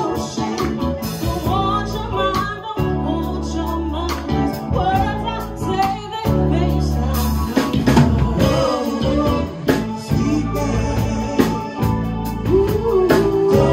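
Live R&B band playing: a woman sings lead over electric bass, keyboards and drums.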